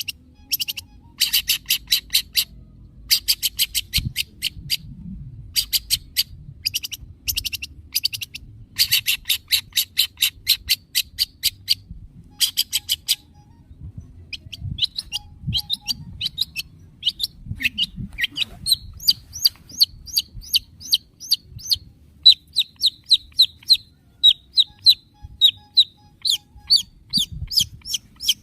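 Long-tailed shrike (cendet) calling: several bursts of rapid, harsh chattering in the first half, then a long run of short, repeated high notes that comes faster toward the end.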